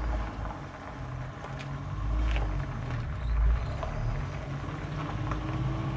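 A low, steady mechanical hum that swells and eases, with a few light clicks over it.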